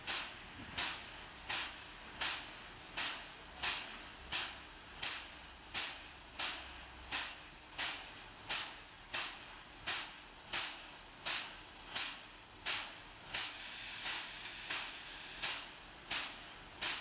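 Pt47 2-8-2 steam locomotive giving off steady, even puffs of hissing steam, about one and a half a second, as it moves slowly. A steadier hiss of steam fills in between the puffs for a couple of seconds near the end.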